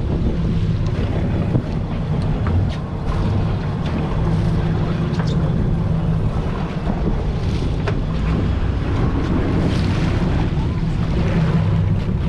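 Boat engine running steadily at low speed, with wind buffeting the microphone and water washing past the hull.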